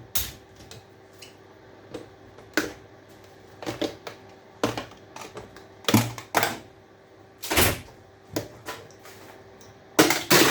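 Irregular clicks, knocks and clatter of scrap appliance parts being handled and pulled apart by hand, with one heavier knock about three quarters of the way through.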